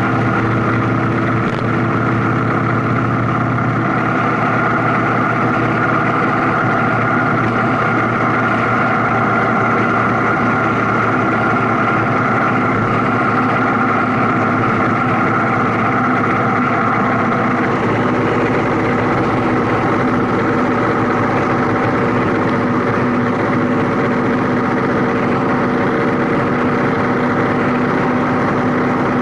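Steady engine drone and road noise of a vehicle driving along a highway, heard from a camera mounted on the vehicle itself. The engine note shifts slightly about eighteen seconds in.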